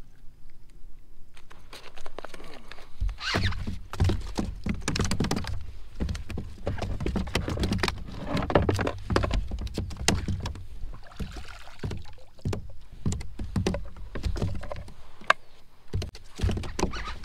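Irregular knocks, clunks and handling noise of fishing gear being moved about in a plastic kayak. The knocks are dense with a low rumble through the middle, then scattered sharp clacks near the end as an orange plastic fish-measuring board is handled.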